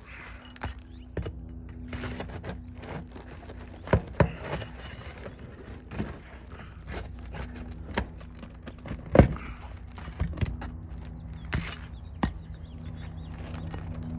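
Irregular sharp clicks, knocks and scraping as sealed asphalt roof shingles are pried up to reach the nail line, with a steady low hum underneath.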